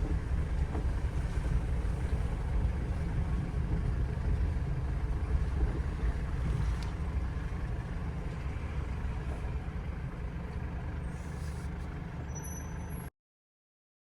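Steady low rumble of a GAZelle van's engine and road noise inside the cab, cutting off suddenly about a second before the end.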